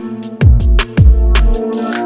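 Background electronic music with a beat: deep bass hits sliding down in pitch about twice a second under held synth notes and crisp hi-hat ticks.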